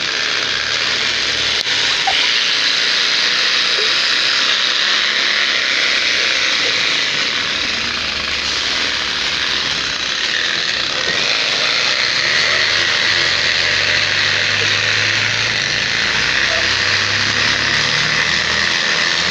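Bicycle wheel spinning with its spokes flicking against a folded plastic margarine lid, making a continuous rattle, the homemade motor-like noise the trick is meant to produce.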